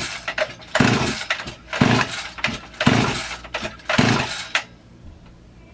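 Recoil starter of a Huztl MS440 clone two-stroke chainsaw pulled over and over, about once a second, the engine turning over without firing against a compression gauge; the pulls stop near the end. The gauge reads just shy of 150 psi, low compression for a fresh build whose rings and bore have not yet broken in.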